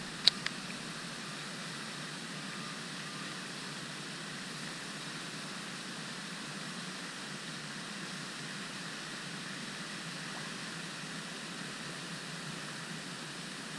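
Steady hiss of a pond aeration fountain's spray, with a sharp click and a smaller one about half a second in.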